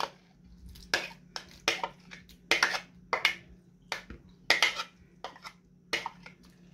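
A metal spoon clinks and scrapes against a glass jug in a string of short, irregular taps as diced tomatoes are scooped out.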